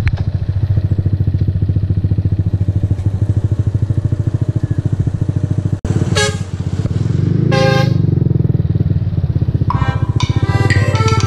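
Motorcycle engine running steadily under way, heard from the rider's seat. A vehicle horn sounds twice in short blasts about halfway through. Background music comes in near the end.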